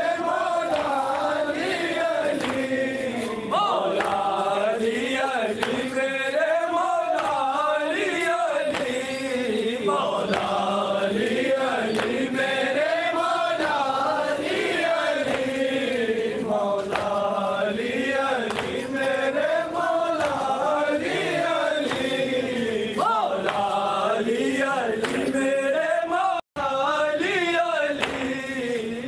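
A group of men chanting a mourning lament (nauha) together, with a continuous melody that rises and falls. The sound cuts out for a split second near the end.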